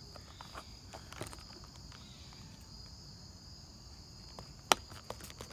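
A trigger spray bottle gives one short, sharp spritz about three-quarters of the way in, over a steady high insect trill.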